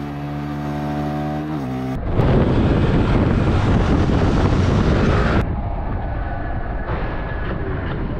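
Motorcycle engine running steadily, heard from the rider's seat, dropping in pitch about a second and a half in as the throttle eases. Then loud wind and road noise on a helmet camera while riding, which becomes quieter about five seconds in.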